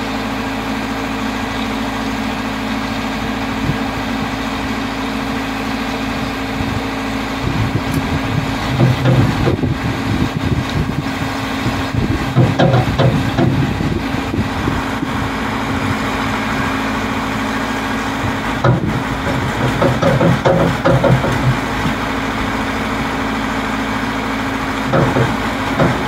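Engine of a self-loading concrete mixer truck running with a steady hum. Irregular louder, rougher spells come over it about a third of the way in, again past the middle, and briefly near the end.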